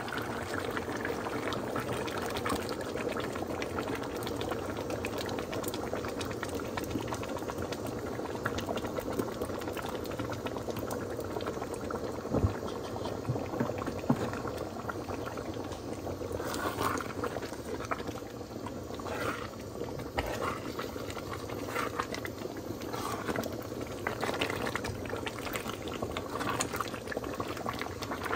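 Pot of cassava-leaf soup boiling vigorously, a steady bubbling with red palm oil on its surface. Two sharp knocks come about halfway through.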